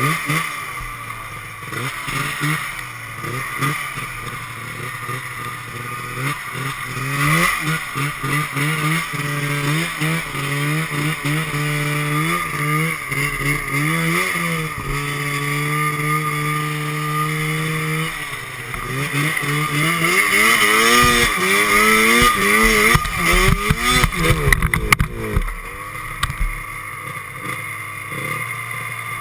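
Snowmobile engine revving up and down as the sled rides through snow, its pitch climbing and falling with the throttle and holding steady for a few seconds midway. About three-quarters of the way through it surges louder amid a cluster of knocks and jolts, then falls back to a lower, quieter running.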